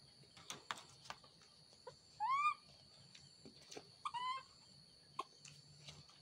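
Baby monkey giving two short calls that rise and fall in pitch, about two seconds in and again about four seconds in. Light taps and knocks come in between as the monkeys move about the wire cage and its plastic balls.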